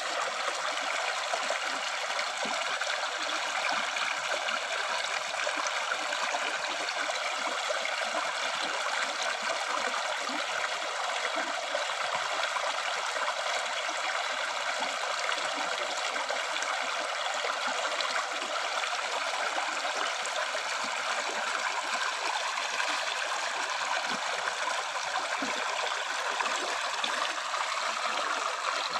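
River stream flowing: a steady, even rush of water.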